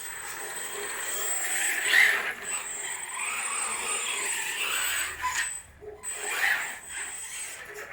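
3D-printed Tarmo4 RC car's plastic drivetrain whirring and rattling as it runs, with a thin steady high whine over it. The sound swells about two seconds in and drops out briefly a little before the end.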